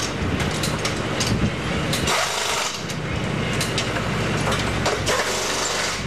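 Steady low mechanical hum, like an engine or generator running, with many short clicks and knocks over it.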